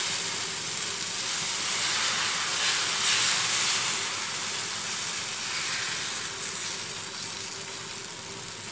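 Wheat adai dosa batter sizzling on a hot dosa tawa as it is spread out with a ladle: a steady hiss that swells about three seconds in, then slowly fades.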